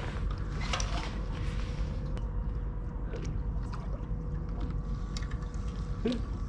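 Steady low rumble of wind and water around a small fishing boat, with a faint steady hum and a few light clicks.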